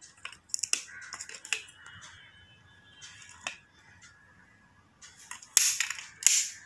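Small clicks and rustles of die-cast model cars being handled, their little hinged doors clicked open and shut, with two louder scraping rustles near the end.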